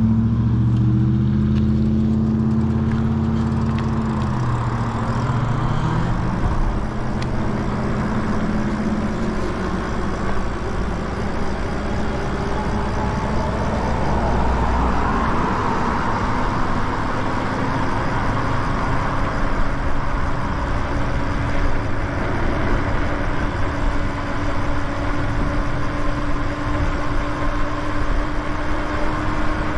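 Wind rushing over the camera microphone, with road noise, as an electric bike pulls away and rides on. A motor vehicle's engine sounds in the first few seconds. From about halfway a faint steady hum rises slowly in pitch as the bike gains speed.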